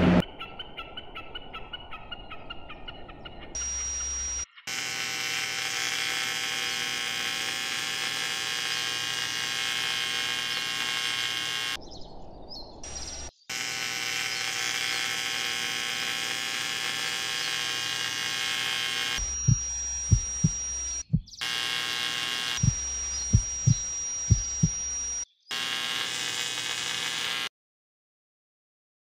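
Steady electronic humming and buzzing that cuts in and out abruptly several times. In the last third it is joined by a run of short, low thumps, then it cuts to silence about a second and a half before the end.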